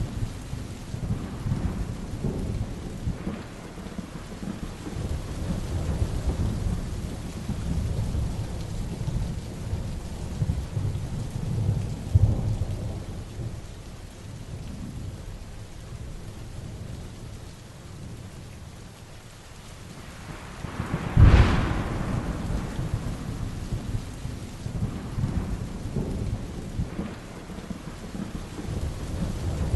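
Heavy rain pouring steadily while thunder rumbles low and keeps swelling and fading. About two-thirds of the way through, a close thunderclap cracks sharply; it is the loudest moment.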